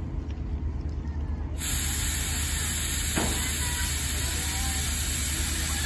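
Type 9600 steam locomotive No. 49671, restored to run on compressed air instead of steam, lets out a sudden loud hiss of escaping air about a second and a half in, which then holds steady.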